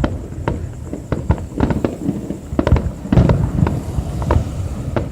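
Fireworks bursting in an irregular run of sharp bangs and crackles over a low rumble, the loudest cluster of bursts about three seconds in.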